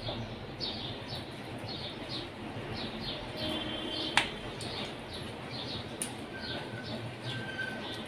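Small birds chirping over and over in the background, short falling chirps about two or three a second, with one sharp tap about four seconds in.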